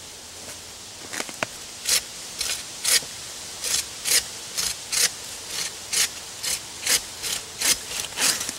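Hand bow saw cutting through a fallen tree branch: a few tentative scrapes to start the kerf, then steady rasping push-pull strokes at about two a second.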